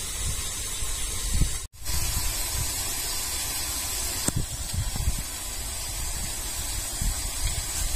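Steady outdoor background hiss with irregular low rumbling, cut by a brief silent dropout about two seconds in, with a faint click a little after four seconds.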